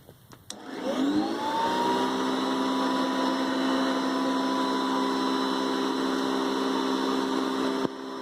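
Hoover upright vacuum cleaner switched on with a click, its motor spinning up with a rising whine and settling into a steady high-pitched run. Near the end a second click, and the sound drops in level while the motor keeps spinning.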